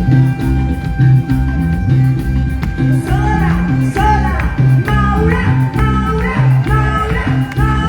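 Live regional Mexican dance music played by a band: a bouncing bass line, with a pitched lead melody coming in about three seconds in.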